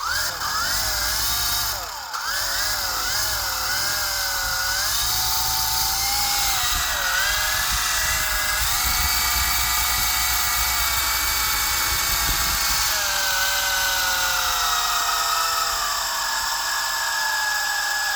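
An RC helicopter's motor and rotor whining steadily, the pitch wavering up and down, then sliding a little lower about two-thirds of the way through and holding steady, with a low rumble underneath.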